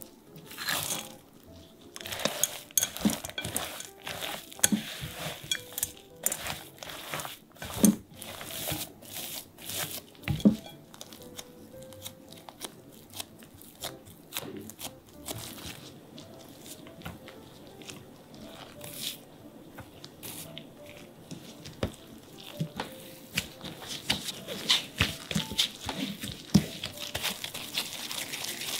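A spatula scraping and knocking against a glass mixing bowl as stiff chocolate cookie dough with chocolate chips and walnuts is folded, then gloved hands pressing and kneading the dough with the crinkle of disposable plastic gloves. The knocks come irregularly, loudest about eight and ten seconds in, with faint background music throughout.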